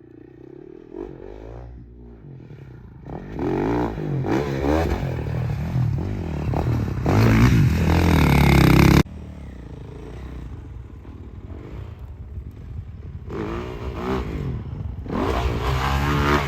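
Dirt bike engine revving up and down as it is ridden, growing louder to a peak about eight seconds in, then cutting off abruptly. An engine revs again and builds toward the end.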